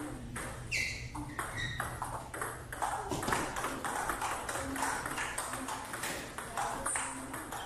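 Table tennis play: the ball clicking off the paddles and bouncing on the tabletop in quick, irregular succession, several hits a second.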